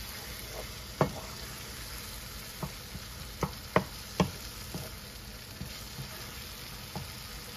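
Onion masala sizzling in a nonstick kadai as a wooden spatula stirs it, with a handful of sharp knocks as the spatula strikes the pan. The masala is fully sautéed.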